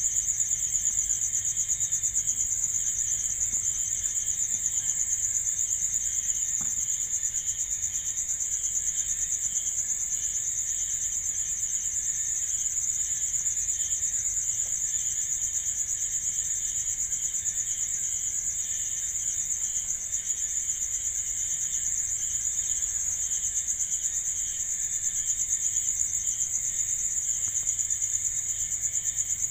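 Night insects, crickets, chirping without a break: a steady, high, fast trill over a lower, pulsing chirp.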